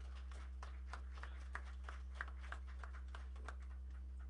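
Light, scattered applause from an audience: separate hand claps, a few a second, over a steady low hum.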